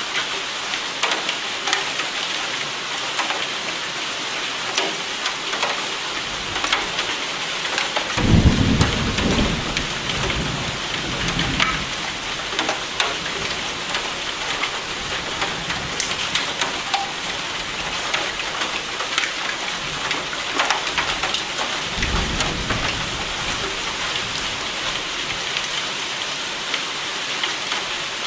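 Steady rain hissing, with scattered sharp drop ticks. A low roll of thunder starts suddenly about eight seconds in and dies away over a few seconds. A second, weaker roll of thunder comes about three-quarters of the way through.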